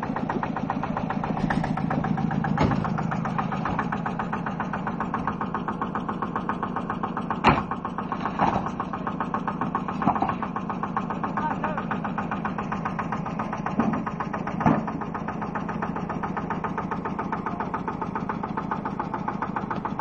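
Old tractor engine idling steadily with an even, rapid firing beat. A few sharp knocks stand out over it, the loudest about seven and a half seconds in.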